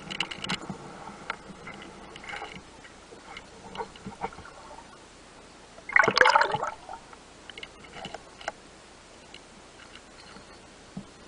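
Underwater sound heard through a camera housing: gurgling and bubbling water with scattered small clicks, and a louder gurgling burst about six seconds in.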